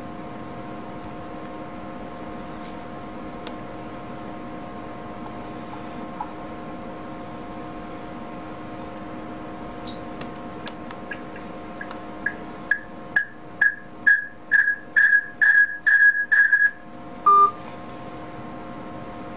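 Mobile phones on a speakerphone call: a run of short high electronic beeps, coming faster and louder for about five seconds, then a single short lower beep as the call is hung up. A steady hum runs underneath.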